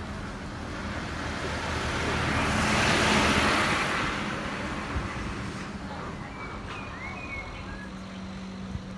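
A light tipper truck driving past close by, its noise swelling to a peak about three seconds in and then fading away.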